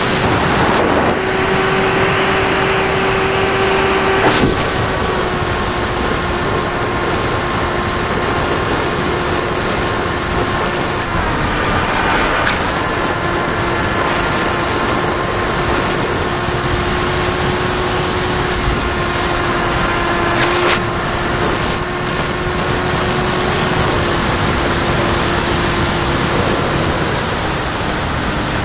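Model airplane's motor and propeller running steadily, heard from the onboard camera with wind rushing over the airframe. There is a steady hum with a high whine above it; the whine drops out and comes back a few times as the pitch shifts slightly.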